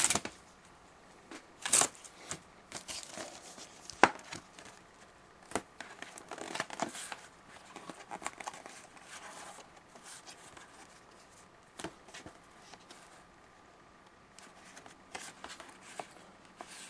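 Hockey card pack wrapper being torn open and crinkled by hand, with the cards and a large 8x10 photo card slid out and handled: scattered tearing, crinkling rustles and small sharp clicks.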